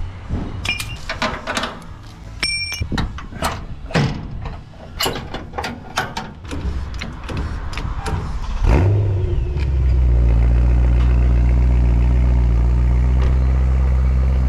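Metal clicks and clanks of ratchet straps being released on a car trailer, then a BMW E92 M3's 4.0-litre V8 starts up about nine seconds in and settles into a steady cold idle through its quad exhaust.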